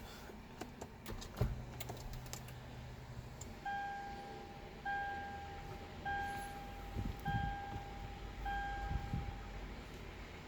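Sharp clicks as the ignition key and dash controls are worked, a brief low hum, then the Toyota Land Cruiser's dashboard warning chime beeping five times at a steady pitch, about a second apart.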